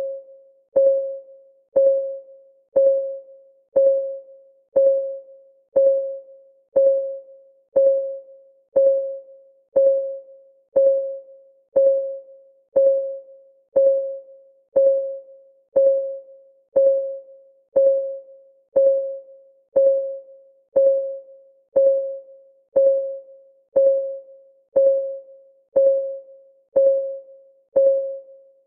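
Clock-ticking sound of a countdown timer: one short tick per second, each a single pitched tone that dies away quickly, at an even pace.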